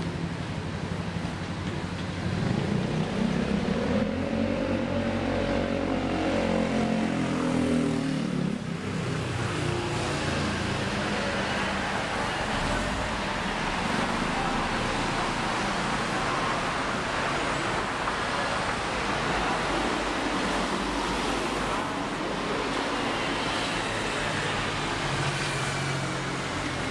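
Road traffic noise from cars passing on a city street. One vehicle goes by close a couple of seconds in, its engine note rising and then falling over about six seconds, before the steady traffic noise carries on.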